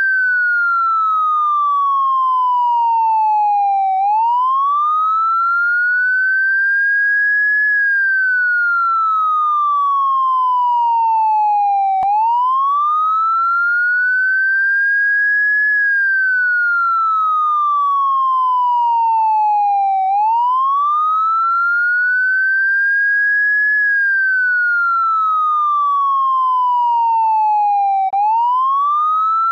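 Electronic police siren in a slow wail: one clean tone climbs quickly and then levels off near its top pitch, then falls steadily back down, each cycle taking about eight seconds.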